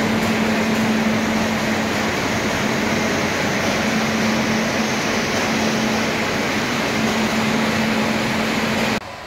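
Steady noise of a train with a constant low hum running through it, cutting off abruptly near the end.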